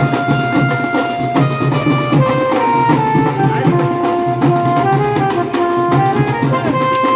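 Music: a wind instrument plays a melody of long held notes that step from pitch to pitch, over steady, busy drumming.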